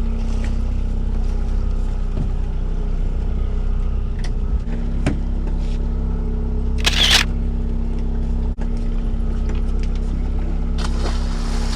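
A boat engine running steadily at a constant low hum. There is a short hiss about seven seconds in, and a few light clicks.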